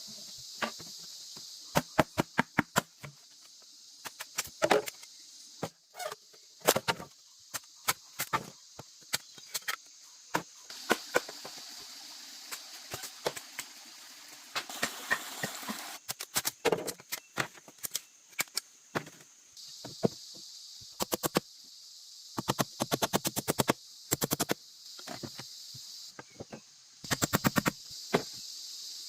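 Sharp knocks and strikes, some single and some in quick runs of several a second, over a steady high drone of insects.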